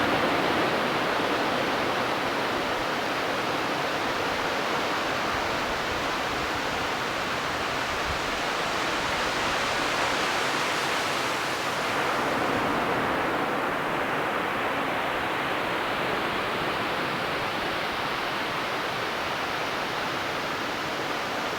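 Ocean surf washing steadily onto a beach, with one wave breaking and rushing in about halfway through.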